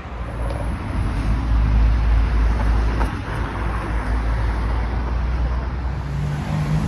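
Road traffic noise in a street, a steady low rumble of passing vehicles that grows louder about a second in.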